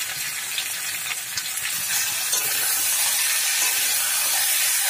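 Potato and raw banana pieces sizzling in hot oil in a wok while cumin and chilli paste is stirred in with a spatula: the spice paste being fried. The sizzle grows a little louder about two seconds in.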